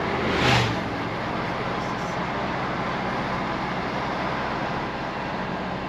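Motorhome driving, with steady engine hum and road noise, and a brief louder whoosh about half a second in.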